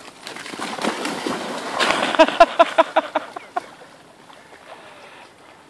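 A large dog launches from the bank into a river and swims off, with water splashing and sloshing around her. About two seconds in comes a quick run of short high-pitched squeaks, about six a second, lasting under two seconds.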